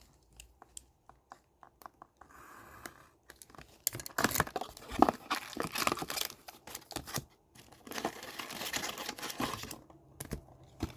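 A hockey card pack's wrapper being torn open and crinkled, with papery rustling and scraping in irregular spells after a few faint ticks at the start.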